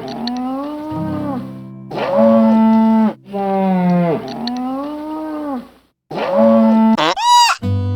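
Animal calls: a series of long pitched calls, each one to two seconds, some falling and some arching in pitch, with a short, much higher-pitched call near the end.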